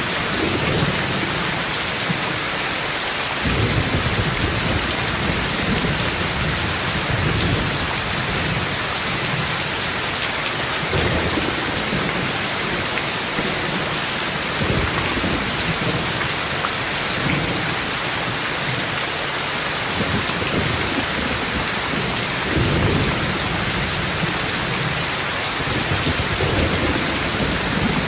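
Heavy rain falling steadily, with low rumbles of thunder rolling in and fading out several times.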